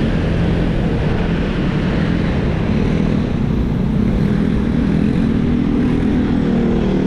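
Close street traffic heard from a bicycle: motorcycle, tricycle and jeepney engines running nearby over a steady low rumble.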